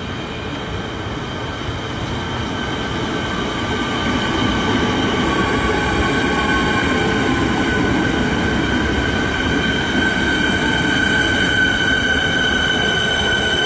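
Siemens Nexas electric multiple unit pulling into the platform: the running noise grows louder over the first few seconds as it nears and then holds as the carriages roll past, over a steady high-pitched squeal from the wheels and brakes as it slows.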